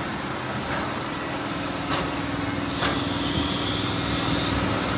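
An engine running steadily, with a couple of short clicks and a higher whine joining about three seconds in.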